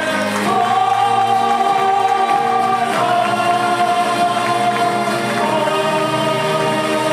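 A mixed group of men's and women's voices singing together on stage in long held notes, moving to a new note every two to three seconds.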